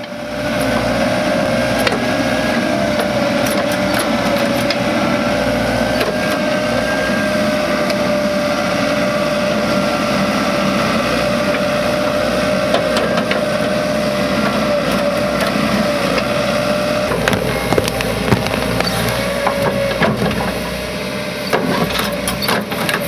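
Excavator engine and hydraulics running steadily under load, with a constant hum, as a Bracke P11.a planting head on the boom works into brushy forest soil. In the last few seconds, sharp cracks and knocks of twigs and earth being crushed under the head.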